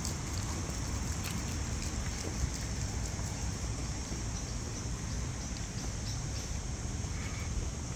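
Outdoor ambience under the trees of a park: a steady low rumble beneath a steady high-pitched hiss, with faint scattered ticks and a short chirp near the end.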